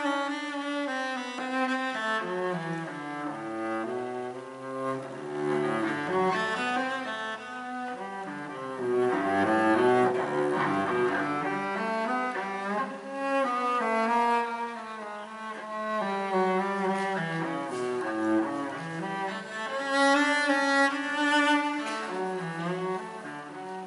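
Solo cello, the Sestese built by luthier Fabio Chiari, played with the bow: a melodic line of notes that keeps moving between the low and middle registers.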